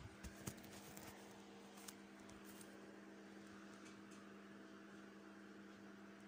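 Near silence: room tone with a faint steady hum and a few small clicks in the first two seconds.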